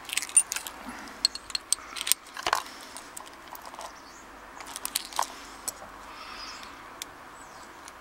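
Bunch of keys on a ring jangling and clinking against a steel padlock body as the lock is handled: a flurry of small metallic clicks, busiest in the first few seconds and thinning out after about five seconds.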